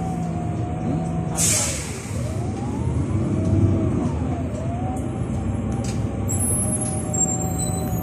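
Irisbus Iveco Cityclass 12 CNG city bus running, heard from on board: a steady engine and drivetrain hum with a whine that falls and rises again twice. There is a short hiss of air about one and a half seconds in.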